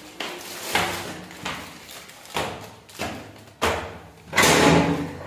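A run of knocks and thuds, about five in three and a half seconds, then a longer, louder rush of noise near the end.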